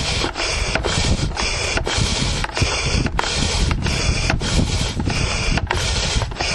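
Air mattress pump pumping, air rushing in and out in a steady rhythm of a little under two strokes a second, sounding like breathing.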